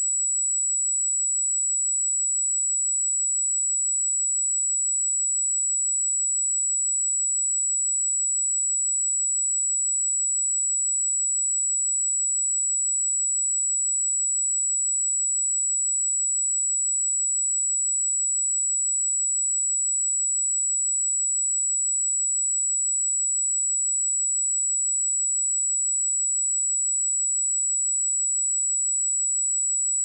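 A steady, high-pitched 7842 Hz pure sine-wave test tone, one unchanging pitch held throughout.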